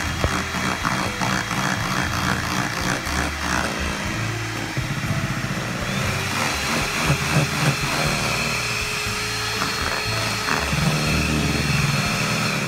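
Electric hand mixer beating cake batter with melted butter in a stainless steel pot: a steady motor whine that shifts higher about halfway through, then stops at the end.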